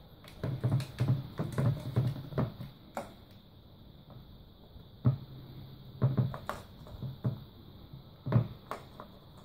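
Hollow plastic knocks and rattles from a cat pawing at a ring-shaped plastic tube toy, with a ball rolling and clattering inside the track. The knocks come in quick runs, with a pause in the middle.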